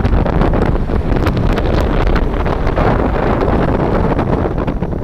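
Wind buffeting the microphone: loud, steady noise heaviest in the low end, with many small crackles.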